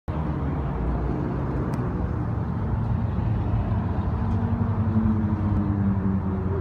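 Diesel locomotives of an approaching intermodal freight train, their engines giving a steady low rumble.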